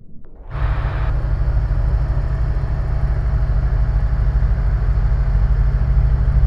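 Light aircraft engine and propeller droning steadily, heard from inside the cockpit, with a fast low pulsing. The loud drone comes in suddenly about half a second in.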